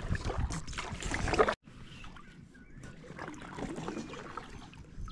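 Kayak paddle strokes dipping into the water, with splashing and dripping. The sound is louder for the first second and a half, cuts off abruptly, then goes on as quieter paddle and water sounds.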